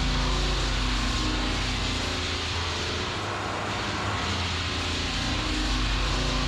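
Electric floor sanding machine running steadily on pine floorboards: a motor hum under a wide sanding hiss, the low hum dipping briefly about halfway through.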